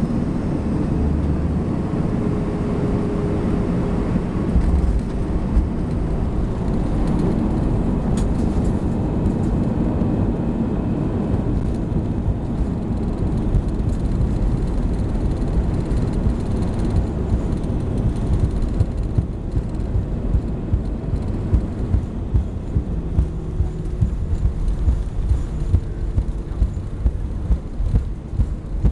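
Airbus A319 cabin noise during the landing rollout: a steady low rumble from the jet rolling on the runway, with the engine noise thinning out partway through as it slows. Through the second half a run of regular thumps comes from the wheels rolling over the runway.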